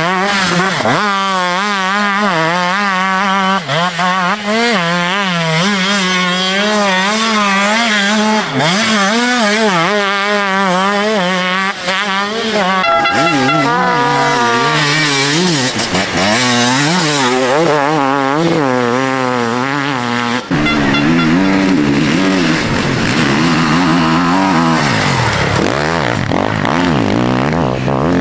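Enduro dirt bike engines revving hard through deep sand, their pitch swinging rapidly up and down as the throttle is worked, one bike after another.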